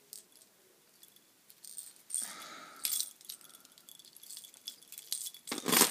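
Hard plastic fishing lures and their treble hooks being handled, clicking and rattling in short scattered bursts, with the loudest burst near the end.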